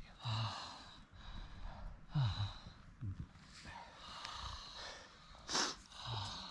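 A person's heavy breathing: several breathy exhales a second or two apart, some with a short low grunt or hum.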